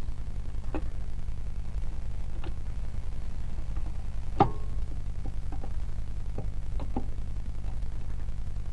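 Scattered light metal knocks and clinks of tools and parts handled on a power tiller gearbox, about six in all, the sharpest about four and a half seconds in, over a steady low hum.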